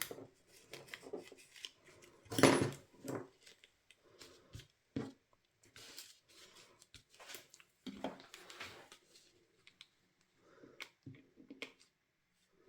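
Lace trim and card being handled and pressed into place by hand: scattered rustles, small clicks and taps, with one louder rustle about two and a half seconds in.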